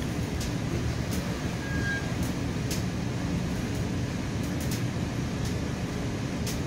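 Commuter train coach running along the line, heard from inside the car: a steady low rumble with a few light clicks and one brief high squeal near two seconds in.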